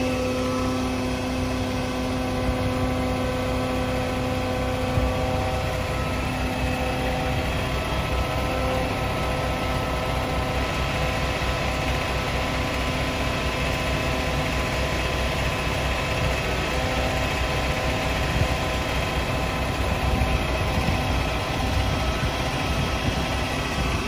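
Concrete mixer truck's diesel engine idling steadily: a continuous low rumble with several constant humming tones over it.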